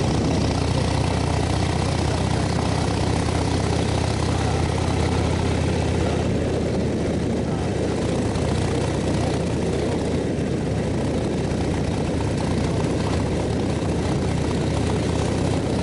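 Motorcycle engine running steadily under a continuous rush of noise, at an even level throughout.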